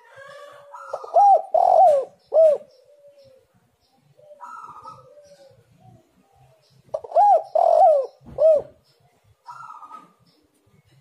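Spotted dove cooing: two loud phrases of three arched coos each, about six seconds apart, with softer notes in between.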